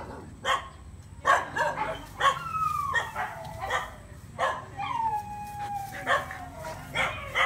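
Siberian husky yipping and barking in a string of sharp calls, with a drawn-out falling whine about two seconds in and a longer falling howl-like whine about five seconds in.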